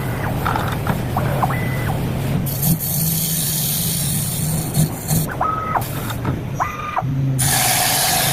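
CNC bamboo-processing lathe running: a steady motor hum with short whines as its axes move. Two long stretches of hiss come in, one about two and a half seconds in and one near the end.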